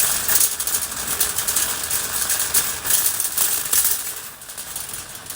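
Dense, irregular rattling clatter, like many small hard parts jostling, that eases off a little after four seconds.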